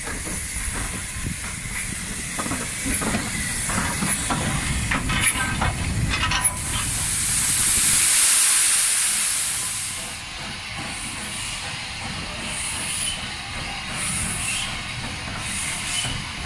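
L&YR 0-6-0 saddle-tank steam locomotives hissing steam. In the first few seconds there are irregular chuffs and knocks over a low rumble. About halfway through, a loud rush of steam blowing off swells and fades over roughly three seconds, then softer hissing and short puffs follow.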